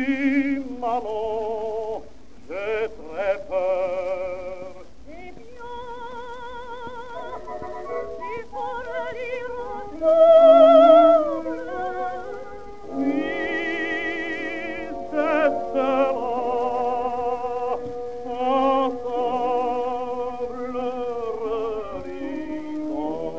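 Operatic soprano and tenor singing a duet with vibrato over orchestral accompaniment. It comes from an acoustically recorded 78 rpm disc, narrow in range and restored to reduce surface noise.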